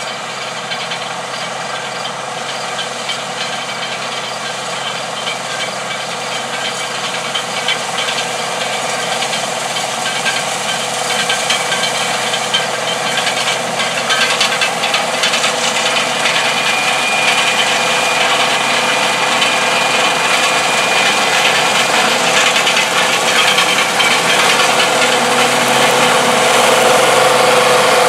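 International Harvester 1460 Axial-Flow combine harvesting soybeans: the engine, grain head and threshing machinery running together as one dense, steady noise. It grows louder as the combine draws near, with a steady high whine from about halfway.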